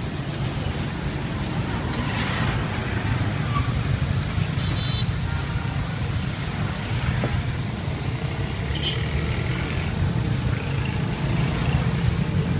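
Roadside street ambience: a steady low rumble of passing traffic, with a short high-pitched tone about five seconds in.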